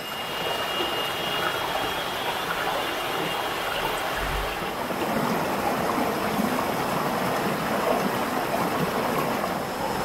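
Rocky forest stream running over small cascades: a steady, even rush of water.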